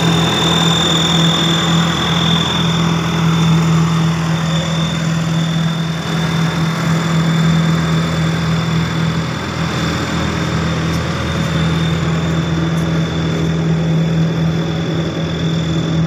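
Diesel engine of a tandem steel-drum road roller running steadily as the roller works over fresh asphalt, with a thin, steady high whine above the engine hum.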